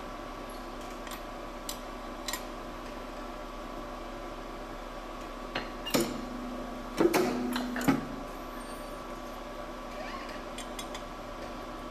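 Steel workpiece blocks handled on a fastener installation press's die fixture: a few light clicks, then around the middle a clack and a quick cluster of metal-on-metal clinks and knocks with brief ringing, over a steady low hum from the machine.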